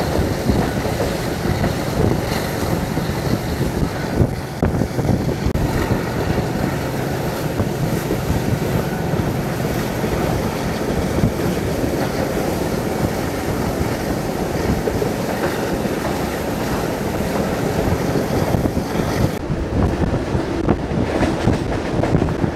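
Rehman Baba Express passenger coach running at speed, heard from an open window: a steady rumble and clatter of wheels on the track, mixed with wind buffeting the microphone.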